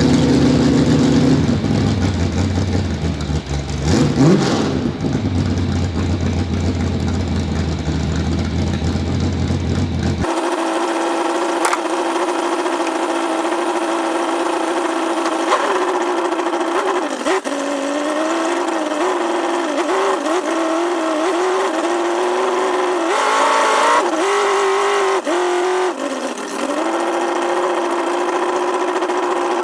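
Truck engine running and revving, its pitch rising and falling again and again. About ten seconds in the sound changes abruptly and becomes thinner, with no low rumble.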